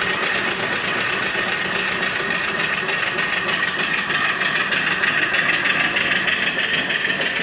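Single-cylinder mill steam engine with a 2 3/4-inch bore and 4-inch stroke running on live steam, a steady, fast, even mechanical beat. It runs really smooth with the steam turned up a little.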